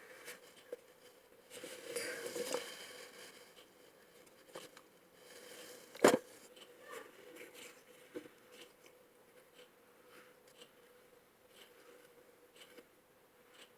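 Faint handling sounds of slime-making, with a liquid mixture being added to the bowl and stirred. There is a soft rustling stretch near the start and a single sharp click about six seconds in.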